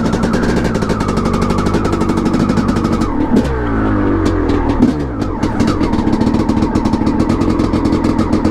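1989 Honda CR500R's single-cylinder two-stroke engine running at a fast idle, freshly rebuilt and on an early heat cycle before break-in. About three seconds in the revs rise briefly and then fall away over a couple of seconds before it settles again.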